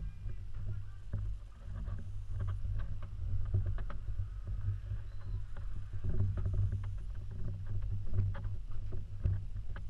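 Handling noise from a handheld camera carried through rooms: a steady low rumble with scattered light clicks and taps.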